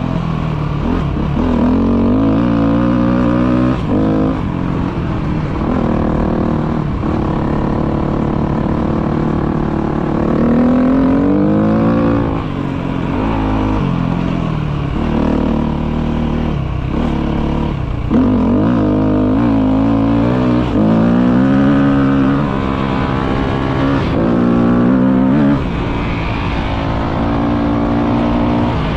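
Off-road motorcycle engine being ridden, revving up and easing off over and over: its pitch climbs, then drops every few seconds at each shift or roll-off of the throttle.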